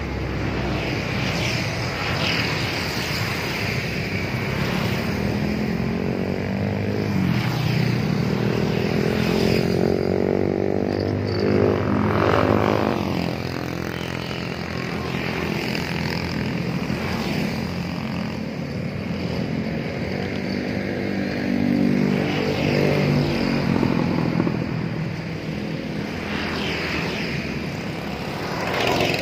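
Road traffic with motor vehicles passing one after another, their engine pitch rising and falling as each goes by.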